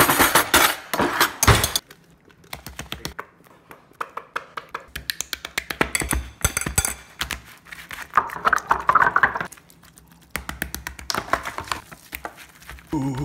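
Cutlery clattering as a hand rummages through a kitchen drawer for the first couple of seconds, then quick runs of wet squishing and slapping as hands mash bread, ketchup and sliced ham on a paper plate.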